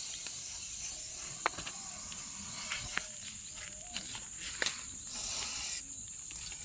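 Steady high-pitched insect drone outdoors, with a few sharp clicks and a short hiss about five seconds in.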